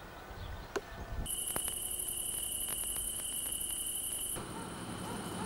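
Crickets trilling, a steady high-pitched chorus that starts about a second in after a single click, then drops to a fainter trill for the last second or so.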